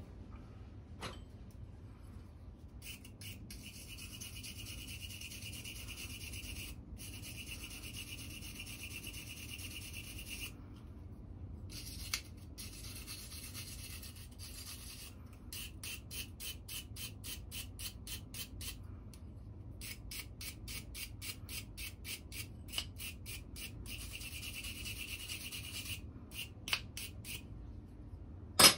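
Hand wire brush scrubbing a strip of aluminum, cleaning the metal before brazing: a scratchy rasp in long runs of quick back-and-forth strokes, about four or five a second, broken by short pauses. A sharp knock near the end.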